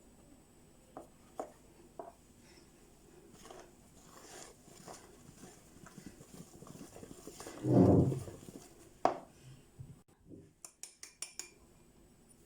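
Light clinks and taps of a utensil against a mixing bowl as the last of the flour is added and stirred into cake batter, with one louder dull thump about eight seconds in and a quick run of clicks near the end.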